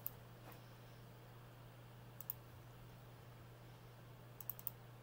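Faint computer mouse clicks: a single click at the start, a quick double click about two seconds in, and a short run of three or four clicks near the end. A steady low hum runs underneath.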